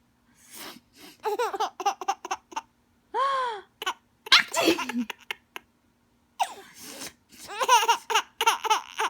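A woman sneezing and a baby laughing back in quick runs of giggles, with a squeal in between; the sneeze comes about halfway through, the baby's laughter before and after it.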